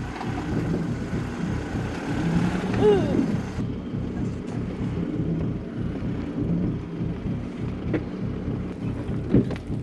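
4WD's engine running at low revs as it crawls over rough ground, with a sharp knock near the end as the bull bar strikes the obstacle.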